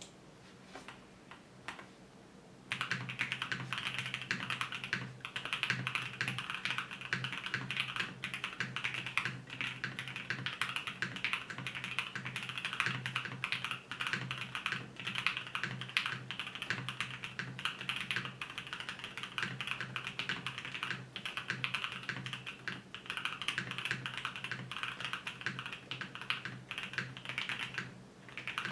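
Fast, continuous typing on a 7V 75% mechanical keyboard with a polycarbonate plate, lubed Alpaca linear switches and PBT keycaps: a dense stream of key clacks that starts a few seconds in after a few light taps, with a brief pause near the end.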